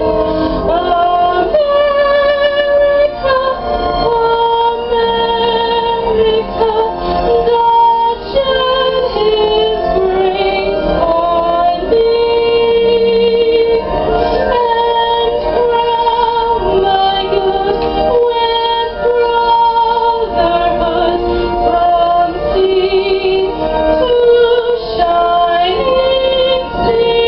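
A woman singing a patriotic song over a musical accompaniment, the voice holding long notes.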